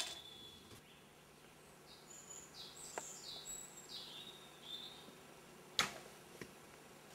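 Modern whistling arrow's aluminium whistle head giving a steady high whistle that cuts off within the first second as the arrow flies away. Then a short run of bird chirps, and a sharp click about six seconds in.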